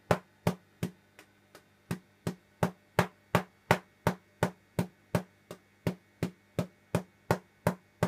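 Solid-state PLL Tesla coil with a pancake primary firing in staccato mode: a sharp spark crack about three times a second, with a couple of much weaker cracks about a second in and one more midway. The coil has gone out of tune, which the builder says is not quite right.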